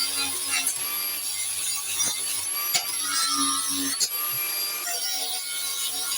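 Wire brush scrubbing old paint off a metal car cooling fan, an irregular scratchy scraping.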